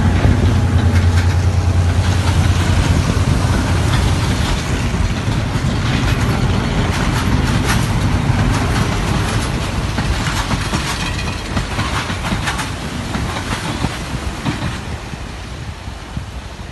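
Waves breaking on rocks, with wind buffeting the microphone: a loud, steady rush over a deep rumble that eases off toward the end.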